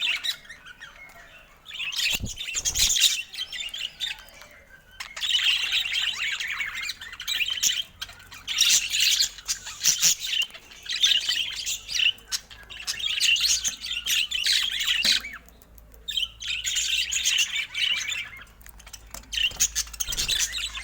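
Budgerigar chattering and warbling: rapid high twittering in bouts of a few seconds, broken by short pauses.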